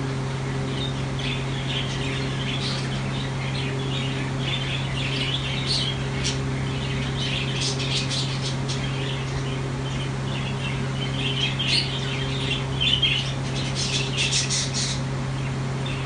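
Exhibition budgerigars chattering and chirping continuously, with sharper squawks around the middle and again near the end, over a steady low hum.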